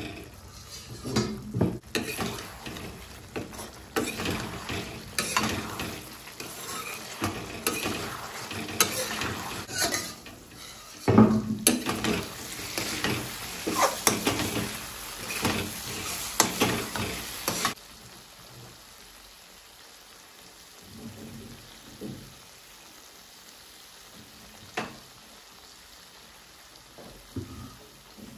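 A ladle stirring pork curry in an aluminium kadai, scraping and clinking against the pan over the sizzle of the simmering gravy. About two-thirds of the way through the stirring stops and only a few faint taps remain.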